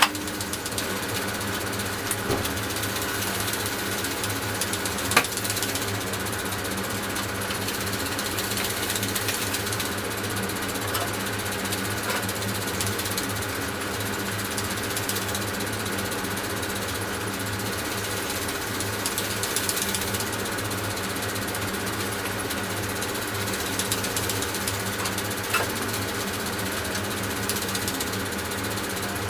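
Sony AIBO robot dog's leg servos whirring steadily as it walks, with a few sharp clicks.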